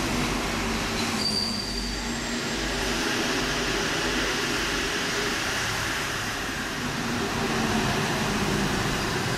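Rubber-tyred Paris Métro Line 1 train (MP 05 stock) moving through the station: a steady rumble of the carriages with its motors humming, and a short high squeal about a second in.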